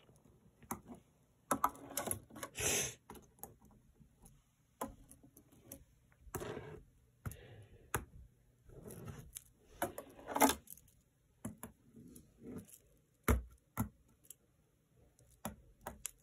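Tech Deck finger BMX bike clicking, tapping and scuffing on a hard floor during finger tricks: scattered light clicks and knocks with a few short scrapes, and a sharper knock about 13 seconds in.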